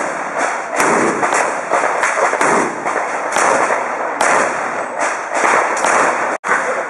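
A string of handgun shots fired in quick succession, about a dozen at an irregular pace of roughly two a second, each ringing on between shots. The sound drops out for an instant near the end.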